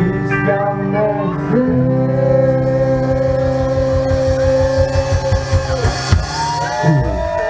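Live rock band with electric guitars, bass and drum kit holding a long final chord over fast, even drumming; it stops about six seconds in, then guitar notes slide and ring near the end as the song finishes.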